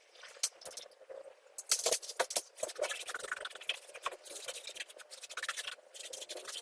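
Irregular scraping and scratching of a hand tool worked against a hard surface, in short uneven strokes with some light rattling.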